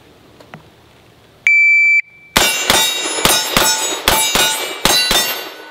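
A shot timer's half-second start beep, then a short-barreled Maxim Defense PDX AR-style rifle fired in semi-auto: eight quick shots, four on each of two steel targets, ringing on the hits. The string from beep to last shot takes 3.65 seconds.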